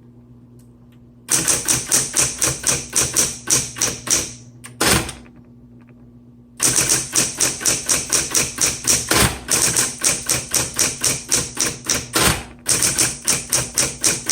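Smith Corona Coronet Automatic 10 electric typewriter being typed on: quick runs of keystrokes, about six a second, over the steady hum of its running motor. The typing stops for about two seconds in the middle, with one lone stroke, then runs on to the end.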